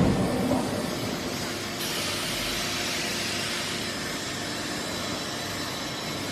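Forging production line machinery running with a steady industrial din, the tail of a heavy blow dying away at the start. A hiss like compressed air or spray joins in about two seconds in and holds steady.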